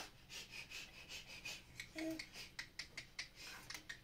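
Faint, irregular scratching and rustling clicks of movement and handling, with one brief voice-like sound about two seconds in.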